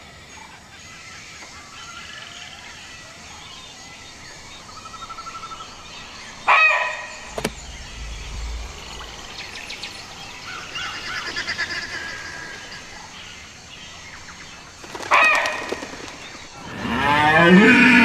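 Deer calls: a short, high call about six and a half seconds in and another about fifteen seconds in, then a longer, louder call with a wavering pitch near the end. Faint bird chirps sit in the background between the calls.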